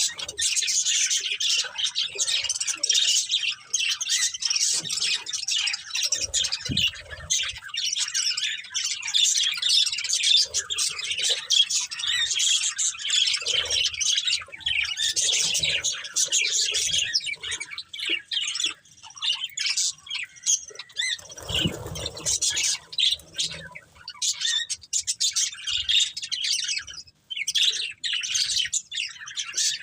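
Budgerigars chirping in a dense, almost unbroken chatter of quick high notes, thinning a little near the end.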